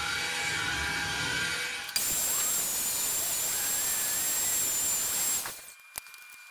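A power tool motor running steadily with a high whine, in short clips that cut in and out abruptly. Near the end it gives way to a quieter stretch with a single sharp click.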